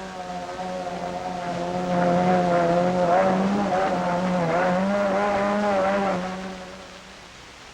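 Mercury outboard racing motor running at high revs, its pitch wavering up and down. It grows louder about two seconds in, then fades away near the end.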